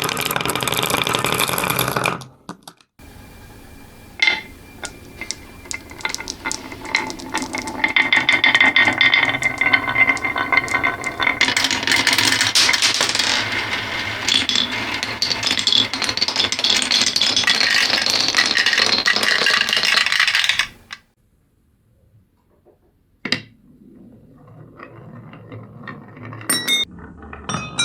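Marbles rolling and clacking down a curvy wooden marble run: many small wooden clicks that build into a dense, continuous rattle, then cut off suddenly. After a near-silent gap come a single click, sparser clicks and a few bright ringing tones near the end.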